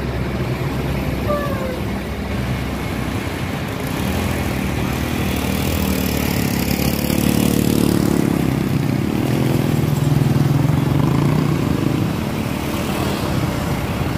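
Engine and road noise of a moving bus, heard through an open side window. About halfway through the engine sound grows louder, rising and falling in pitch, as a motorcycle passes close alongside.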